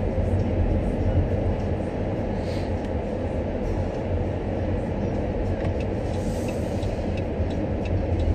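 Steady road and engine rumble inside the cabin of a Dodge Grand Caravan minivan while it is being driven, with faint, rapid, regular ticking in the second half.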